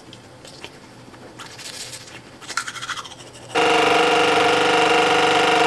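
Toothbrush scrubbing faintly against teeth. About three and a half seconds in, an electric toothbrush switches on and buzzes with a loud, steady hum.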